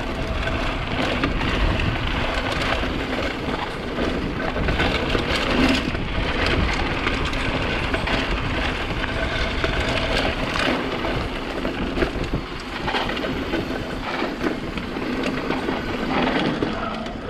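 Mountain bike riding over rough ground: tyres crunching and the bike rattling, with wind on the action camera's microphone. A steady rush dotted with many small knocks.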